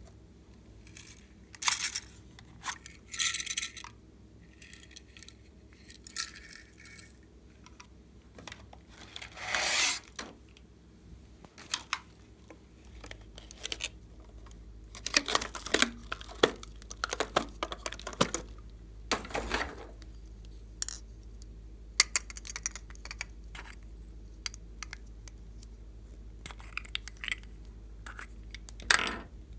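Small hard plastic containers handled close to the microphone: irregular clicks and taps, with a few longer rubbing scrapes.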